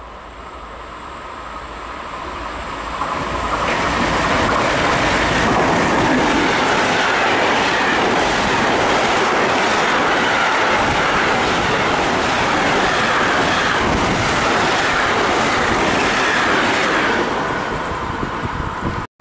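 Intermodal container freight train hauled by an E189 electric locomotive passing through a station at speed. It grows louder as it approaches, jumps about three and a half seconds in as it reaches the platform, and its wagons' wheels clatter on the rails until it falls away near the end, where the sound cuts off abruptly.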